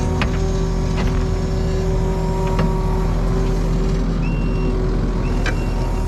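Kubota compact track loader's diesel engine running steadily while its bucket pries a large boulder out of the sod, with a few sharp knocks.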